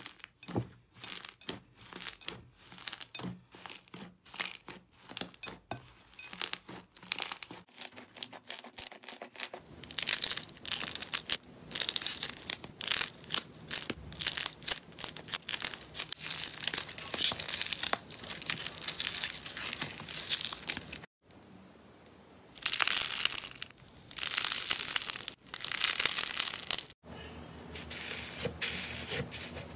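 Hands squeezing and pressing slime: a series of short sticky clicks and pops at first, then denser crackling, with brief breaks where the clips change.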